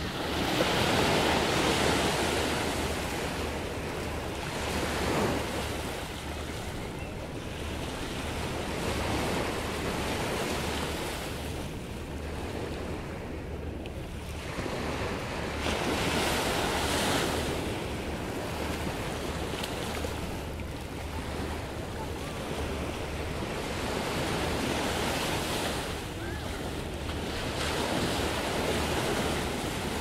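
Ocean surf breaking and washing up a sand-and-pebble beach, swelling and falling every several seconds, with a steady low rumble underneath.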